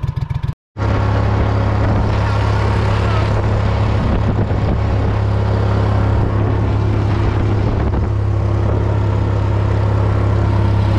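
Boat motor running at a steady speed, a loud even drone that comes in abruptly after a brief silent gap about half a second in.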